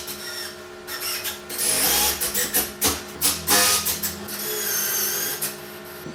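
Woodworking tool noise on lumber: an irregular run of short bursts of working sound, rising and falling.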